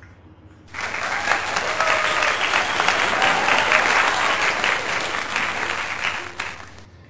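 Crowd applause that starts suddenly about a second in, runs for about five seconds and fades out near the end.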